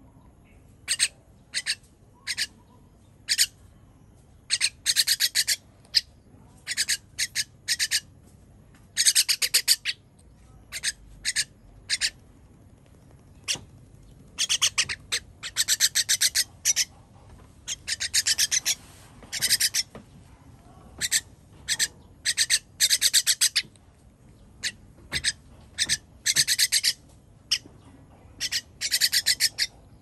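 Common myna giving harsh, buzzy begging calls while it gapes for food from a hand. The calls come in irregular bursts, some short and single, others in runs of about a second.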